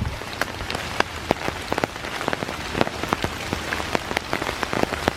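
Steady rain falling, with many irregular sharp raindrop taps close by.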